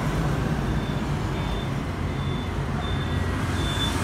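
Steady low rumble of street traffic, with a faint high beep repeating about every two-thirds of a second.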